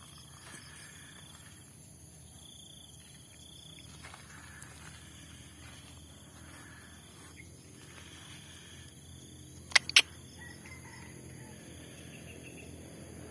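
Insects calling, a steady high buzz with repeated short chirping phrases. About ten seconds in come two sharp clicks in quick succession, the loudest sound.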